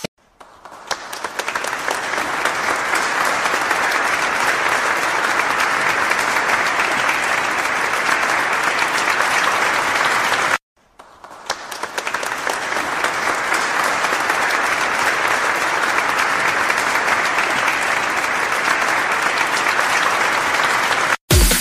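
Crowd applauding, in two stretches that each swell in over a couple of seconds, with a short break about ten seconds in.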